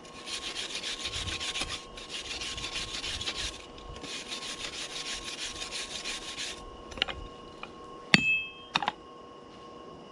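A hand tool scraping hard over steel in three long rasping passes with fast, fine strokes. A few sharp metal clinks follow, one with a brief ring.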